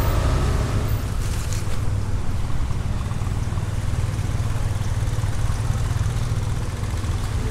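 Road traffic on a city street: vehicle engines running close by, a steady low drone.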